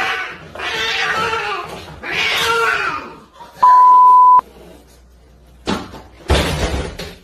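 Angry cat hissing and yowling in three long bursts, then two shorter sharp hisses near the end. Around the middle, a loud steady beep lasting under a second.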